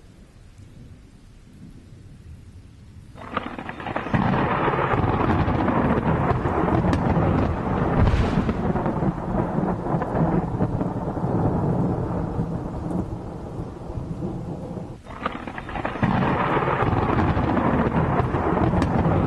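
Thunder: a faint low rumble, then a sudden crack about three seconds in that rolls on loudly for some twelve seconds. A second clap breaks in near the end and keeps rumbling.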